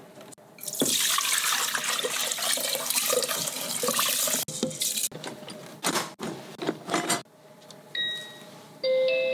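Washed, wet rice poured from a steel bowl into an electric pressure rice cooker's inner pot, a rushing pour of about four seconds. Clatter follows as the bowl is set down and the cooker's lid is closed. Near the end the cooker sounds short electronic beeps.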